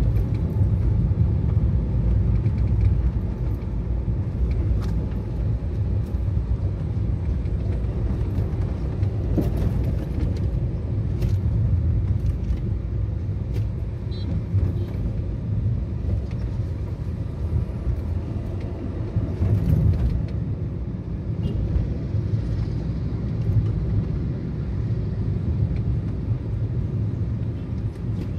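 Steady low rumble of a moving car heard from inside the cabin: engine and road noise while driving, with a few faint clicks and knocks along the way.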